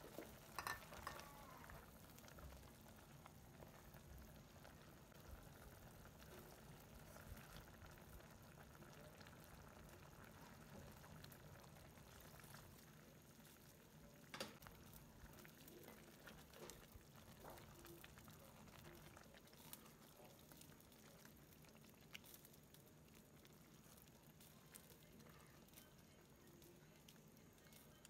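Faint bubbling of a creamy tom yam sauce simmering in a pot, with a few brief knocks, the sharpest about halfway through.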